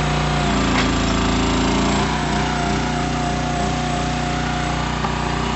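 Small engine of a trailer-mounted automated SPT drilling rig running steadily and driving its hydraulics, with a steady whine over it. About half a second in the note changes and wavers for a few seconds as a hydraulic control lever is worked and the rig's mast moves.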